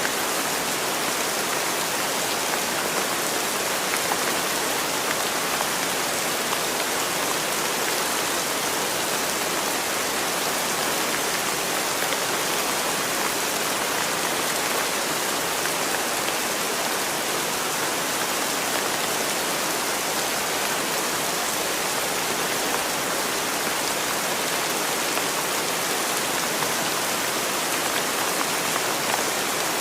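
Steady rain falling, an even hiss that runs on without a break.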